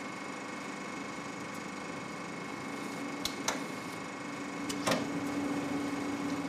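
A 1978 35 mm cinema film projector running, its film drive giving a steady, fast mechanical clatter. A low steady hum joins partway through, and a few sharp clicks fall about three to five seconds in.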